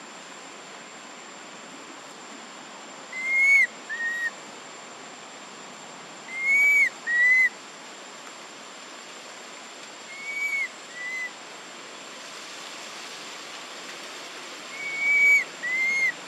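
High, clear two-note whistled call, a longer arched note followed by a shorter one, repeated four times about every three and a half seconds. A steady thin high tone and a hiss run underneath.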